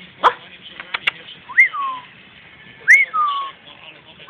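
A person whistling to call a puppy: three like whistles about a second and a half apart, each rising quickly and then gliding down. A sharp click comes near the start.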